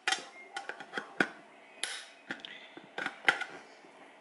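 Manual lever can opener cutting around the lid of a steel can of beans: about eight sharp metal crunches and clicks at uneven intervals, one per stroke.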